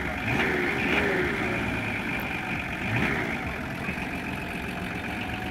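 Nissan Patrol's engine running steadily at low revs as the SUV creeps forward, pulling a towing rope.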